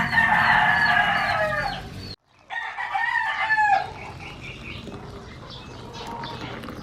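A rooster crowing twice. Each crow is a long call that ends in a falling tail, and the sound drops out abruptly for a moment between them.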